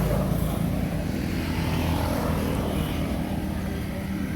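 A steady low engine drone that fades slightly towards the end.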